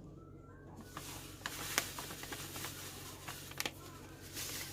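Light handling noises: scattered small clicks and rustling over a low steady hum.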